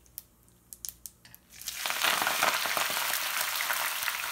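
A few faint ticks, then about one and a half seconds in, wet spinach leaves hit hot oil in a pan and it breaks into a steady sizzle that rises sharply and stays up.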